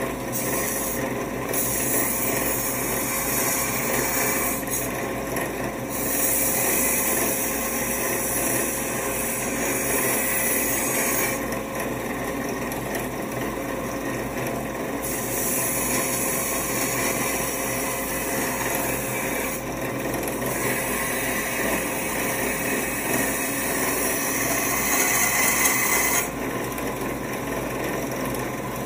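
Belt grinder running while a pattern-welded steel knife blade is ground against the belt: a steady motor hum under a hissing grind that comes in passes of a few seconds, with short breaks where the blade comes off the belt. Near the end the grinding stops and only the motor keeps running.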